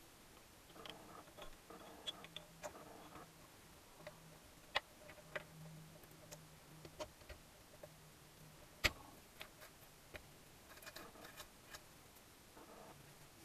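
Sparse light metallic clicks and clinks of steel gears and a gearbox shaft being slid and seated by hand in a Gilera Sport 150's aluminium crankcase, with one sharper knock about nine seconds in.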